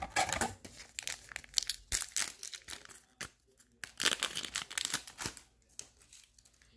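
Foil wrapper of a Digimon card game booster pack crinkling and tearing as it is taken from the box and ripped open. The rustling comes in two stretches with a short pause about three seconds in, then dies down near the end.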